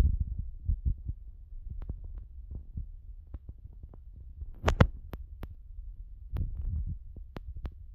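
Low, irregular thumping and rumble from a phone being held while filming, with scattered sharp clicks, the loudest pair about five seconds in.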